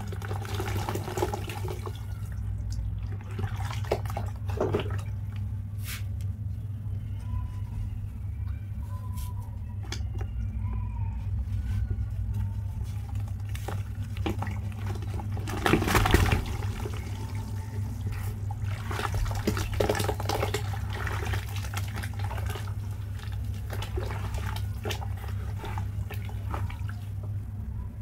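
Dry charcoal cement crumbled by hand over a bucket of water, with powder and chunks breaking off and splashing into the water in repeated bursts, the loudest about halfway through. A steady low hum runs underneath.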